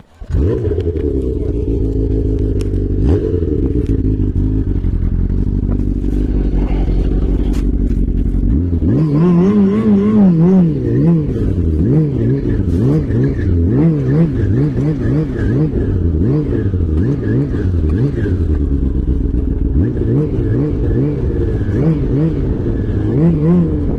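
Snowmobile engine starting up abruptly and idling steadily, then from about nine seconds in revved up and down again and again.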